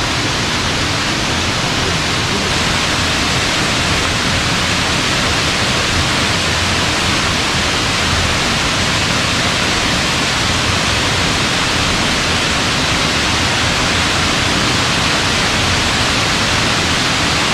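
Water of Ravana Falls pouring down the rock, a loud, steady rushing hiss.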